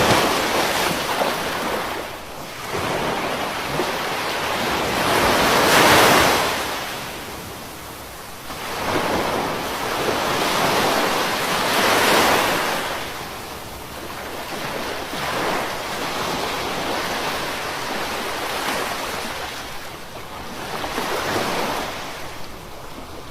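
Ocean waves breaking on a beach, the surf swelling and fading about every six seconds, loudest twice in the first half and gentler after, with some wind on the microphone.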